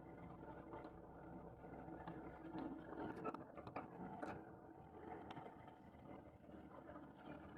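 A truck engine running steadily and faintly, with a few light clicks and knocks about three to four seconds in.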